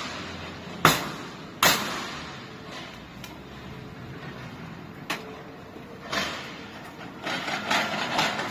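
Metal rolling shutter door knocking and rattling. Two sharp bangs come less than a second apart near the start, then lighter knocks, then a couple of seconds of clattering near the end.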